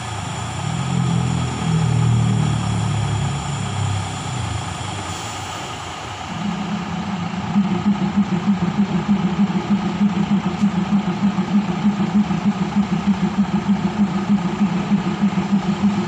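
Diesel railcar engine running while the railcar stands at the platform. About six seconds in, the engine settles into a steady low note with a regular throb of about three beats a second.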